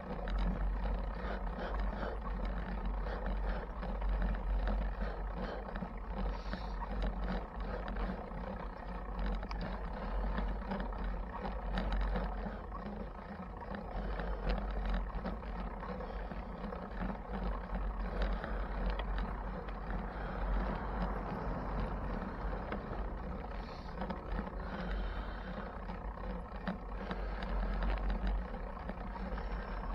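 Wind rumbling over the microphone and road noise from a bicycle being ridden through city streets, with small rattles and clicks throughout.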